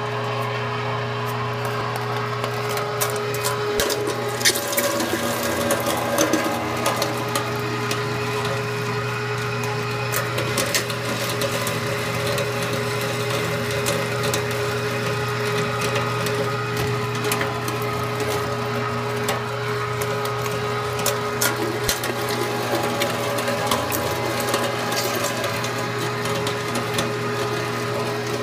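Electric food grinder running steadily under load as it grinds dog food ingredients. A constant motor hum is broken by many irregular crunches and cracks, thickest in the first third.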